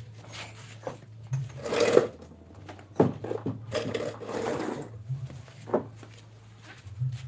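Refrigeration vacuum pump running with a steady low hum that swells briefly every second or so, evacuating the refrigerator's sealed system, with several short hissing or rubbing noises and a few sharp knocks from handling the hoses and tools.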